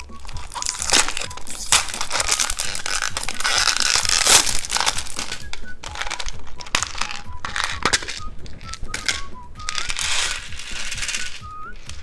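Plastic candy packaging crinkling and rustling in irregular bursts with sharp clicks, over light background music with a simple stepping melody.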